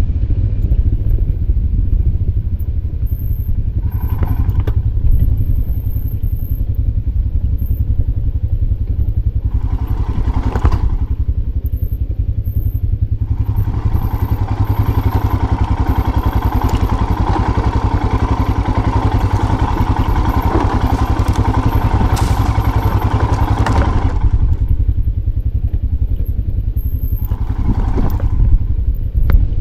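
Motorcycle engine running under way on a rocky dirt trail, with a steady low rumble underneath. The engine sound swells briefly a few times and grows louder and fuller for about ten seconds in the middle, along with clatter and thuds from riding over the stones.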